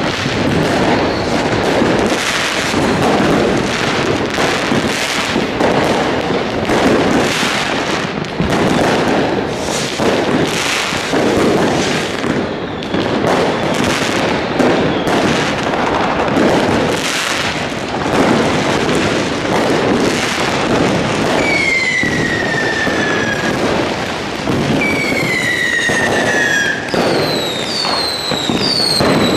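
Dense fireworks: a continuous barrage of firecracker bangs and crackling. In the last third, whistling fireworks add several falling whistles that overlap near the end.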